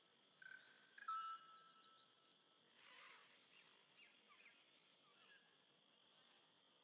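Faint bird calls: a short whistled note and a longer held one about a second in, then a scatter of quick falling chirps, over a soft outdoor hiss.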